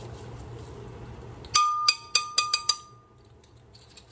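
A measuring spoon tapped about seven times in quick succession against the rim of a glass container, knocking off bouillon powder. The glass rings briefly after the taps.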